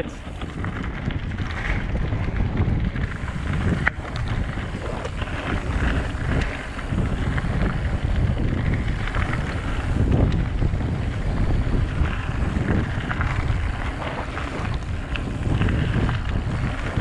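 Wind buffeting the GoPro's microphone as a Focus Jam e-mountain bike rolls fast down a gravel singletrack, its tyres crunching and the bike rattling over the bumps, with a sharp knock about four seconds in.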